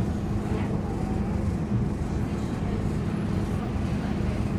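Scania K230UB city bus's five-cylinder diesel engine running steadily, heard from inside the bus.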